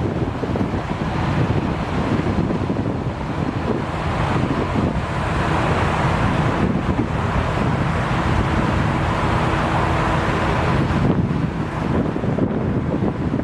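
Strong wind buffeting the microphone, a loud steady rumble.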